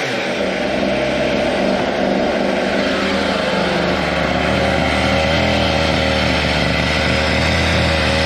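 Water-cooled Zenoah G300PUM two-stroke goped engine with a WT-668 carburetor, idling steadily on a bench stand.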